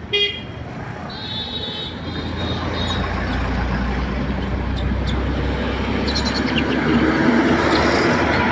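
Roadside traffic: a short, loud horn blast right at the start and a second, higher horn about a second in, then heavy vehicles rumbling past, the noise swelling toward the end.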